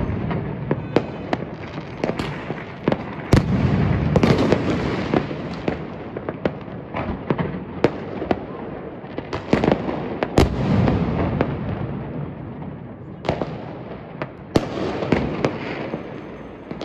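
New Year fireworks going off all around: many irregular sharp bangs and crackles over a continuous rolling rumble, with a few louder bangs about three, ten and fourteen and a half seconds in.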